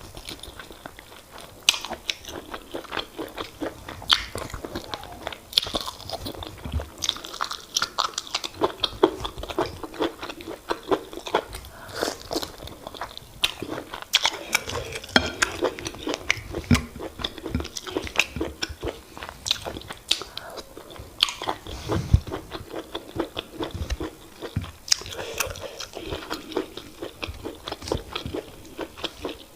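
Close-miked mouth sounds of a person eating semolina fufu with oha soup: steady chewing with dense, quick mouth clicks.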